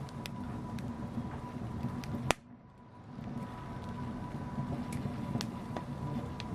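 Wood fire in a fireplace crackling: scattered sharp pops over a steady low rumble of flames. A loud pop comes about two seconds in, after which the sound drops away briefly and then builds back.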